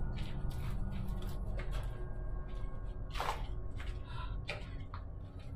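Footsteps on a concrete floor and stairs, irregular scuffs and knocks about two a second, over a steady low rumble. The loudest step comes about three seconds in.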